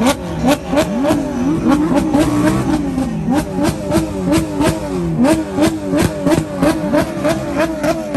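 Porsche 911 GT3's flat-six engine revved in quick throttle blips, its pitch jumping up and falling back over and over, faster toward the end. Loud and sharp-edged.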